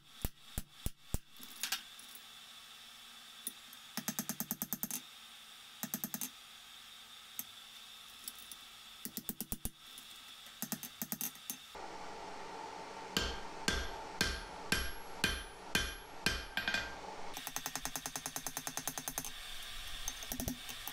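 Hammer blows on hot steel at the anvil, forging a fire poker. They come as single strikes and then as quick runs of closely spaced blows, with the anvil ringing on some strikes in the second half.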